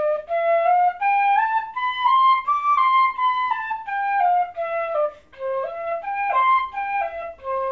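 Bamboo pífano (Brazilian fife in C) playing a fast C major scale up and back down, notes articulated in pairs at two to a beat, then a shorter run with wider leaps up and down, ending on the low C.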